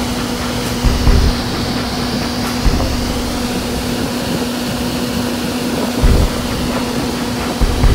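Vertical wind tunnel running at flying speed: a steady loud rush of air with a steady hum under it, broken by a few short low buffets of wind.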